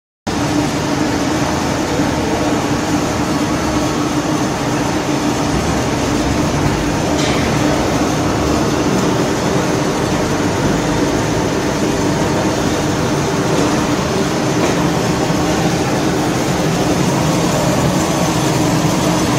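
Running machinery of a popcorn production line: electric motors and conveying equipment in a steady, loud drone with a constant hum.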